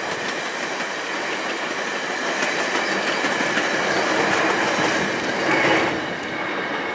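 Stainless-steel passenger cars of a passing VIA Rail train, their wheels clattering on the rails, with a steady high ringing tone over the clatter. The sound swells a little near the end, then eases.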